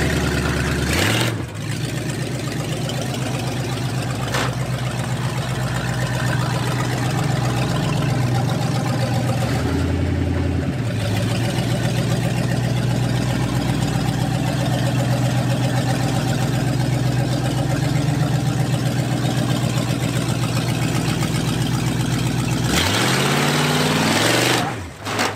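1968 Pontiac LeMans engine running as the car is driven, revving up a few times. Near the end it revs hard and the rear tyres spin in the dirt, then the revs drop off.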